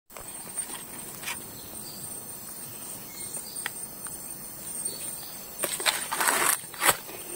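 Forest ambience with a steady high-pitched insect drone and scattered small clicks; from about five and a half seconds in, loud rustling footsteps through leaf litter and undergrowth.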